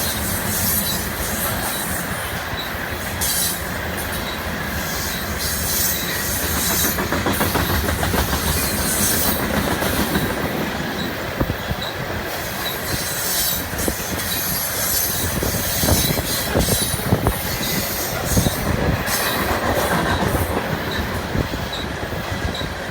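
A moving train running on the track: a steady, loud rolling rumble of wheels on rail with scattered short clicks.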